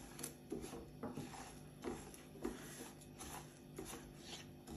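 A silicone spatula stirring a dry, crumbly mix of roasted semolina and sugar in a nonstick frying pan: a series of soft, irregular scraping strokes, about one or two a second.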